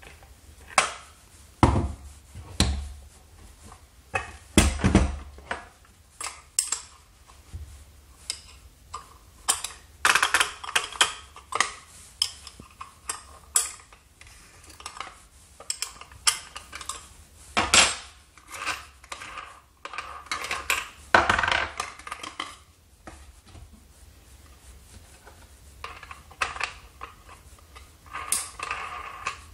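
Metal parts of a Milwaukee M18 FUEL angle grinder being taken apart by hand: the side handle is unscrewed, and a two-pin spanner wrench works the flange nut so the cutting disc can come off. Irregular clicks, clinks and knocks, with short stretches of scraping about ten seconds in and again around twenty seconds.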